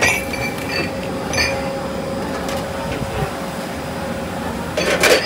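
Food-stall background in a busy hawker centre: a steady machine hum with a few light clinks of porcelain bowls, and a short, louder clatter near the end.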